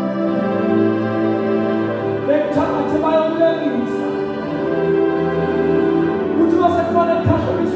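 A man's voice singing long held notes into a microphone, amplified through a loudspeaker, with the pitch stepping from note to note every second or so.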